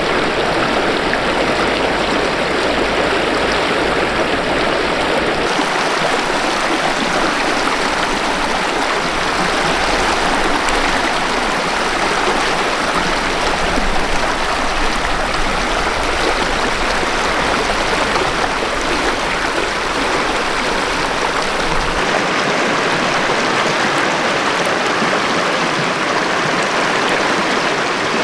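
Mountain river running over rocks, a steady full rush of water. The deepest part of the sound drops away about five seconds in, comes back later, and drops away again near the end.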